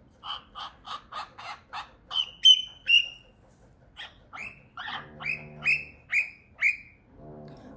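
Albino cockatiel giving runs of short, sharp, repeated calls: a quick string of about seven, three louder ones about two seconds in, then a slower string of about seven. The owners take it for a new call, possibly an imitation of a dog's bark.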